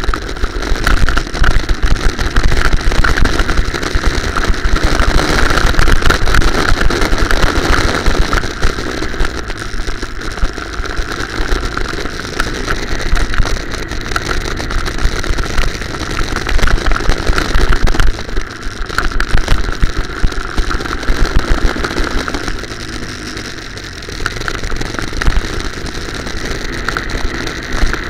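Go-kart's small petrol engine running hard, heard from a camera mounted on the kart, with a heavy rumble from the kart's vibration. The sound eases off briefly a few times and swells again as the kart slows for corners and accelerates out.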